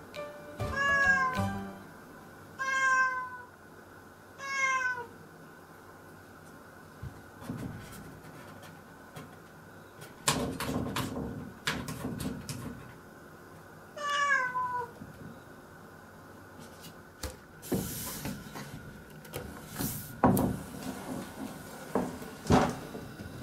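Domestic cat meowing at a closed door: three meows in the first five seconds and one more about fourteen seconds in. Between and after the calls come scrapes and knocks as she paws at the door, with sharper knocks and thuds near the end as the door is opened.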